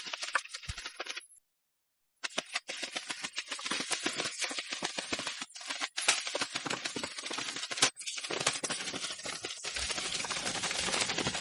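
Cartoon sound effect of sprinting thistles scurrying: a rapid, dense clatter of tiny clicks and rustles, like many small feet pattering. It stops about a second in and starts again a second later.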